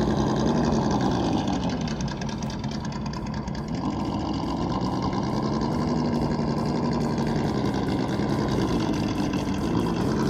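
Simulated truck engine from an RC crawler's Sense ESS-Dual sound module, played through the truck's small onboard speaker. Its pitch rises and falls several times with the throttle as the crawler climbs, like an engine revving up and dropping back.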